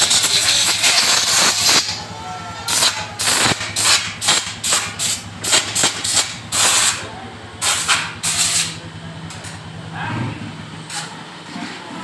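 Compressed-air blow gun blowing out the motorcycle's front sprocket and chain area: a long continuous blast, then a quick run of short bursts about a second and a half in, thinning out towards the end.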